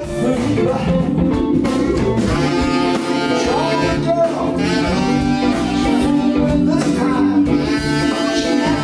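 Live blues band playing loudly and steadily, with tenor saxophone, electric guitar, keyboard and drums.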